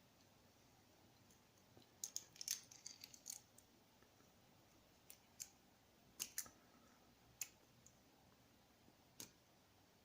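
Light, sharp clicks and taps of a small outboard carburetor and its metal parts being handled, first a quick flurry of them, then single clicks a second or so apart.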